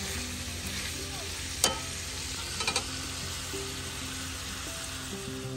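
Bacon sizzling steadily in a nonstick frying pan on a propane camp stove. A sharp click comes about one and a half seconds in and a few lighter clicks about a second later: metal tongs knocking against the pan.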